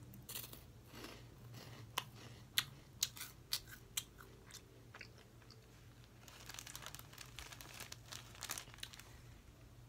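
A crunchy, spicy cheese-ball snack being chewed: a run of sharp crunches about two to four seconds in, then softer, steadier chewing later on.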